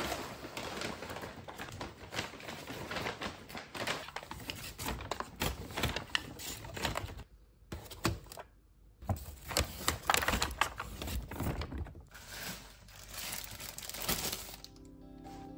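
Paper grocery bags rustling and packaging crinkling as groceries are unpacked, with light taps and clicks as items are set down on a stone countertop. There is a brief pause about halfway through.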